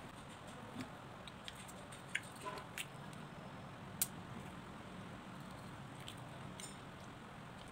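Rambutans being opened by hand with a small knife over a ceramic bowl: soft squishy tearing of the hairy skins, with scattered light clicks and taps of the knife and utensils on the bowls, the sharpest about four seconds in.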